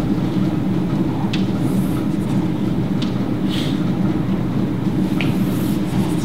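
Chalk tapping and scraping on a chalkboard a few times as a diagram is drawn, over a steady low rumble.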